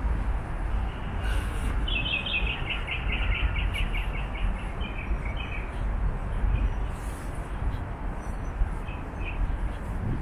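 A songbird gives a quick run of repeated chirps for a few seconds, starting about two seconds in, over a steady low rumble of background noise.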